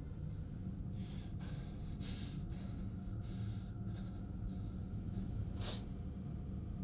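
A man breathing heavily in ragged breaths over a low, steady hum, with one sharper, louder gasp near the end.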